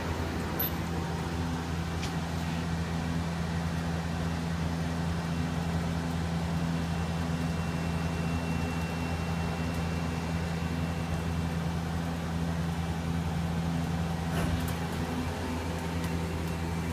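Okuma Captain L-470 CNC lathe running, a steady hum with several low steady tones and a few faint clicks.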